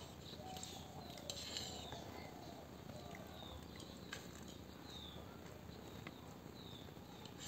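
Faint sounds of a small child eating noodles with a fork: soft chewing and a few light clicks, with short high chirps repeating about once a second in the background.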